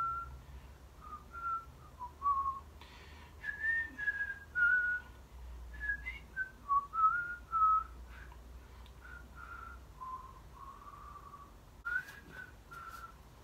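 A person whistling a tune in short phrases, single clear notes stepping and sliding up and down.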